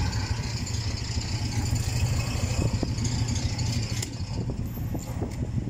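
A vehicle engine idling steadily, a low hum with a fast even pulse. A few light clicks and knocks come in the second half.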